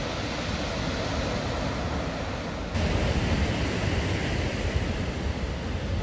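Ocean surf breaking on a rocky coast, a steady rush of waves. About two and a half seconds in it cuts abruptly to louder surf with wind rumbling on the microphone.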